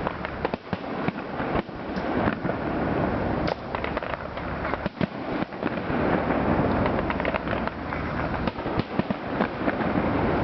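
Fireworks display: a dense, continuous barrage of bangs and crackling shell bursts over a steady rumble.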